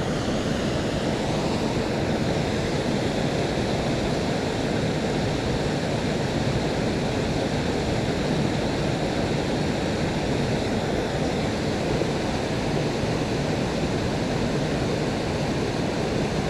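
Steady rush of a small creek waterfall pouring into a deep pool, a constant roar of falling water.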